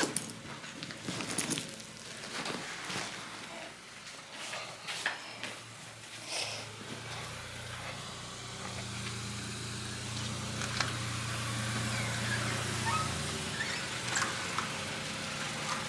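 Scattered clicks and handling knocks, then a low steady motor hum that builds about seven seconds in, holds, and stops a couple of seconds before the end.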